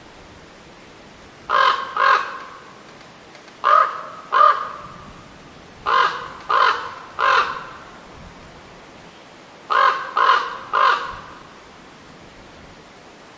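A crow cawing in short series: two caws, then two more, then three, then three, with a pause of a second or two between series.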